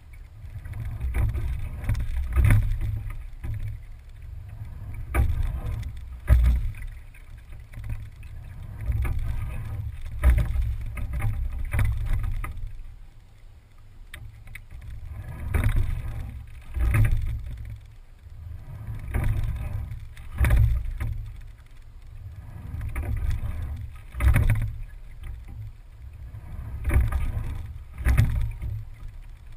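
Single scull being rowed at an easy steady pace: the oars knock in their oarlocks twice on each stroke, one pair about every four seconds, over a steady low rumble.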